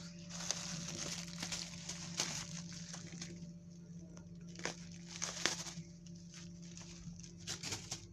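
Irregular rustling and crinkling, like food packaging being pawed at and handled, broken by several sharp clicks, over a steady low hum.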